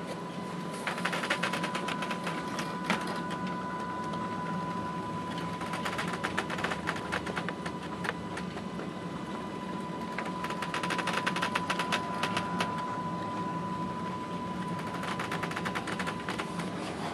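Ship's bridge under way: a steady low machinery hum with a constant high whine, broken four times by spells of rapid mechanical clicking and rattling, each lasting a second or two.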